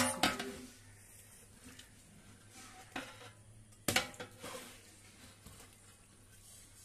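A cooking utensil knocks against a metal cooking pot twice, once at the start and again about four seconds in, each knock ringing briefly. Quieter sounds of stirring the wet stew come between the knocks.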